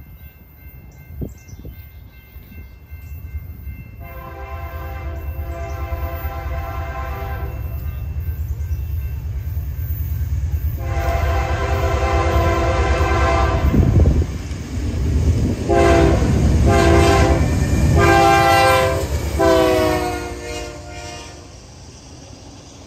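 Freight locomotive's multi-note air horn blowing two long blasts, then a run of shorter blasts whose pitch drops as the engine passes. Under the horn, the train's rumble swells as it approaches and eases off near the end as the cars roll by.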